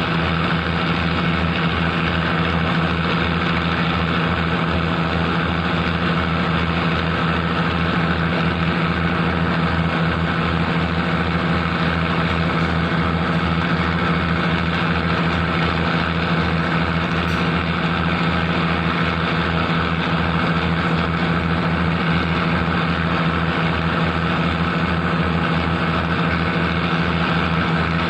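A boat's engine running steadily at an even pitch, with a fast low throb.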